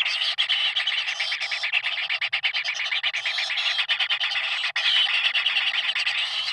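Kingfisher chicks calling: a continuous, rapid, harsh chattering.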